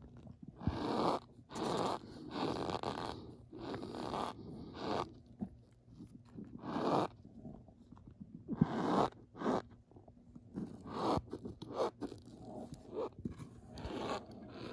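Packed Argo cornstarch being squeezed and crumbled over a plate: a continuous run of short, uneven crunchy squeaks as the powder compresses and breaks, with chunks and powder falling onto the pile. Near the end a spatula pushes into the heap.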